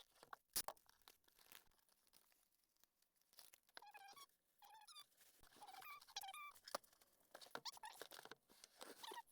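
Faint scattered clicks, crinkles and short squeaks of hands handling, packing and taping a cardboard box.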